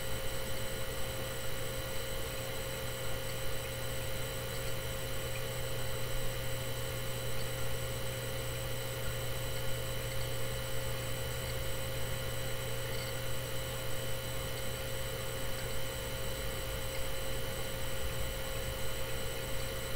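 Steady electrical hum with hiss and several constant faint tones. There are no distinct events.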